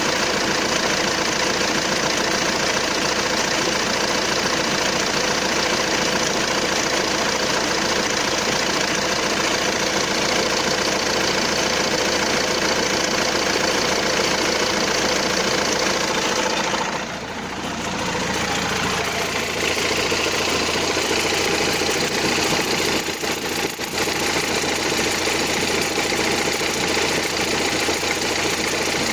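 Renault Scénic III 1.6 dCi 130 four-cylinder turbodiesel idling with a strange noise at idle, which the owner suspects comes from a component that seems to have play. The sound dips and changes briefly a little past halfway, then runs steadily again.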